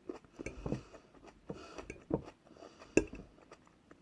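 Eating noises: small clicks and knocks of cutlery against a plate and mouth sounds between bites, the sharpest click about three seconds in.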